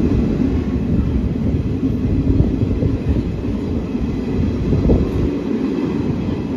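Passenger train running along the track: a steady low rumble of wheels on rails, heard from beside the coach's open door.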